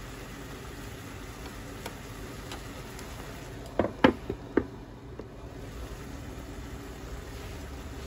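Napa cabbage and satsuma-age steam-frying in a frying pan with a steady, faint sizzle. About four seconds in comes a quick run of sharp wooden knocks as a wooden lid is set back down on the pan.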